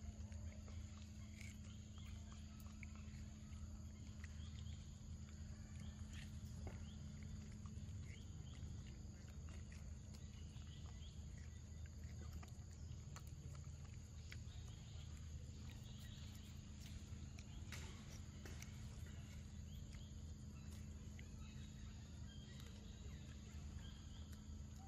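Macaque eating ripe mango, chewing and smacking on the soft flesh: faint scattered clicks and smacks over a steady low hum.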